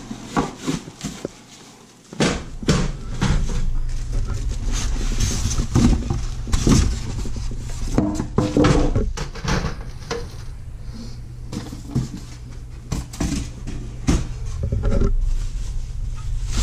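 Unpacking noise: plastic wrapping crinkling, styrofoam packing rubbing and squeaking, and the glass lid and box being handled in a run of irregular rustles and light knocks. A low steady rumble comes in about two seconds in.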